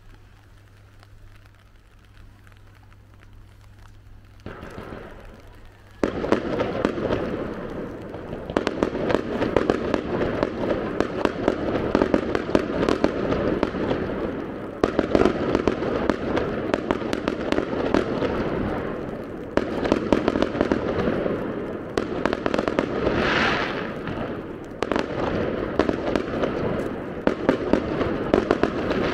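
Fireworks display: a low steady hum at first, a rising whoosh about four seconds in, then from about six seconds a loud, dense, continuous barrage of bangs and crackling. A brief shrill whistle cuts through about two-thirds of the way in.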